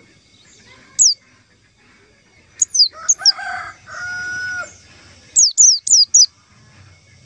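Pleci (white-eye, Zosterops) calling: short, sharp, high chirps that sweep downward. There is one about a second in, a quick cluster around the middle and four in fast succession near the end. A lower, drawn-out call from another bird sounds in the middle.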